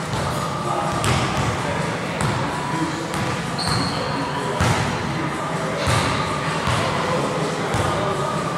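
Basketball bouncing on a gym floor, irregular thuds about once a second that echo in a large hall, over faint background voices. A brief high squeak comes about three and a half seconds in.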